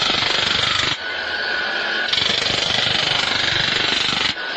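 A power tool hammering rapidly and steadily, the sound changing abruptly about a second in, around two seconds in, and near the end.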